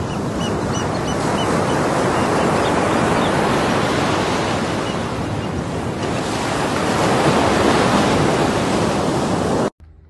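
Loud, steady rush of churning sea water as a large pod of dolphins splashes through the surface, with wind buffeting the microphone. A few faint high chirps sound in the first three seconds, and the sound cuts off suddenly near the end.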